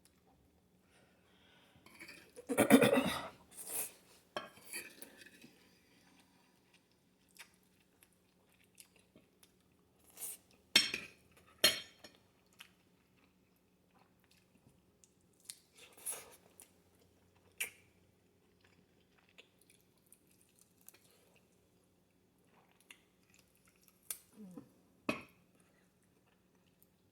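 A person eating: intermittent chewing with scattered clinks and scrapes of cutlery and dishes, loudest about three seconds in. A faint steady hum runs underneath.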